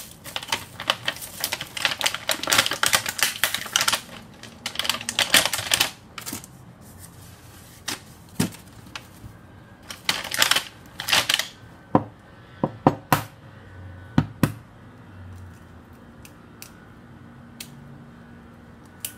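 Plastic carrier bag rustling and crinkling in long bursts, then scattered sharp clicks and knocks. Near the end, one sharp tap as an egg is cracked on the rim of a stainless-steel bowl.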